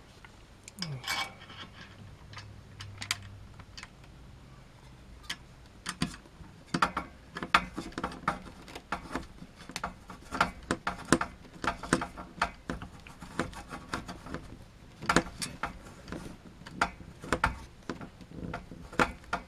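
Screwdriver working stubborn CPU heatsink mounting screws: irregular small clicks, taps and scrapes of metal, sparse at first and coming thick and fast after a few seconds.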